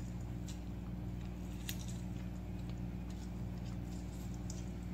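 A steady low hum, with faint scattered clicks from a spoon and fingers working a thick yogurt-and-spice marinade in a glass bowl.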